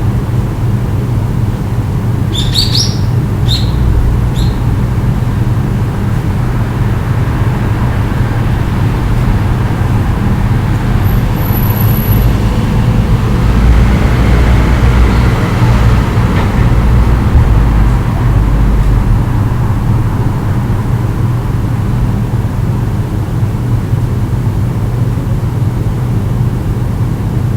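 Steady low hum of road traffic, with a few short bird chirps about two to four seconds in. A vehicle passes, louder from about halfway through and fading a few seconds later.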